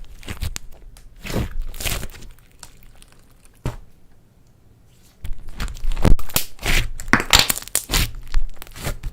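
Hands squishing and pressing slime that is full of mixed-in makeup, glitter and small toy parts, giving irregular crackles and pops. There is a single click a little before the middle, a brief pause, then a denser, louder run of crackling in the second half.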